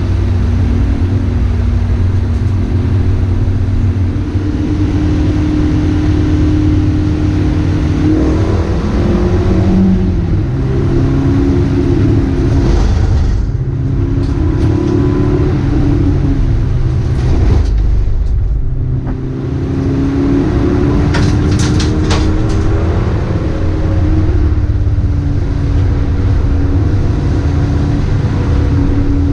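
A Dacia Logan race car's four-cylinder engine heard from inside the cabin, its pitch rising and falling as it accelerates, shifts and lifts off for corners, over loud road and tyre noise on a wet track. A few sharp ticks come about two-thirds of the way in.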